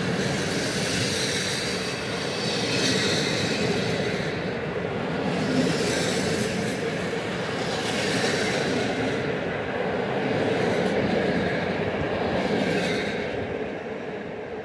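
Passenger coaches of an intercity train rolling past on the rails: a steady wheel-on-rail rumble and clatter that swells each time a coach goes by, then dies away near the end as the last coach clears.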